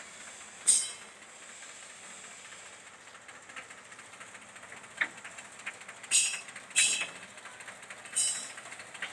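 Loose steel sheets clanking and scraping under a tractor's wheels as it rolls across them: sharp metallic clanks, one about a second in and three more near the end, over a steady hiss.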